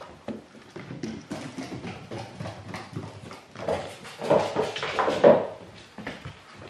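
A small poodle's claws clicking rapidly on a hard, smooth floor as it trots and scrambles about. The clicking grows busier and louder about four seconds in.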